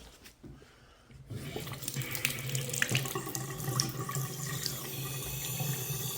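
A sink faucet is opened about a second in and hot water runs steadily into the sink.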